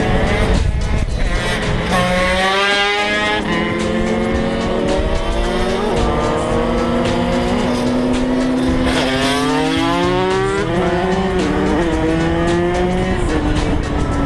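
125cc two-stroke supermoto motorcycle engines revving. Twice the pitch sweeps quickly up and then holds high, while another engine runs at a steady pitch underneath.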